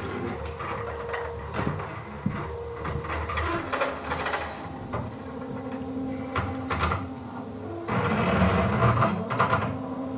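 Stepper motor turning the table saw's blade-tilt mechanism through 3D-printed plastic gears: a steady motor whine that shifts pitch a few times, with clicking and rattling from the gear teeth, louder from about eight seconds in. The gears are running dry and need oiling.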